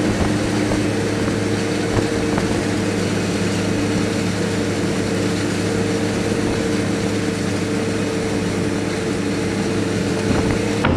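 Steady heavy diesel drone of a John Deere 8700 self-propelled forage harvester chopping corn close alongside, mixed with the tractor the microphone rides on, holding an even pitch throughout.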